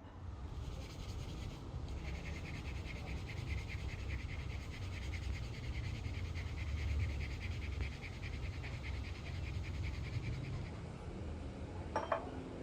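Fast, steady scraping or rubbing strokes from hand work, ending with a sharp click near the end.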